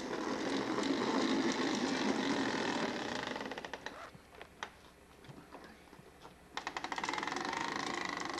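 Hard plastic wheels of a Little Tikes ride-on push car rolling on a concrete sidewalk: a loud rattling rumble that dies down about three and a half seconds in, then starts again as a fast, even clicking rattle about two-thirds of the way through.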